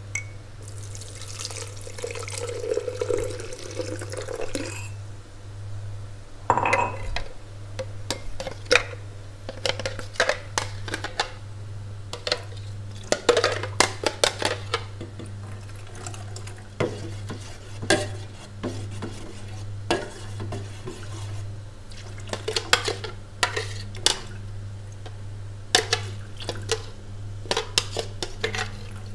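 A spoon scraping and knocking against the inside of a blender jar, clicking and clinking irregularly as thick chili and tempoyak paste is scraped out into a stainless steel saucepan. A splash of water swishes in the jar for a few seconds near the start, and a low steady hum runs underneath.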